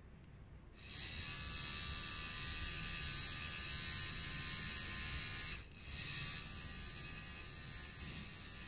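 Tattoo machine running with a steady electric buzz, starting about a second in. It cuts out briefly a little past the middle, then runs on slightly quieter.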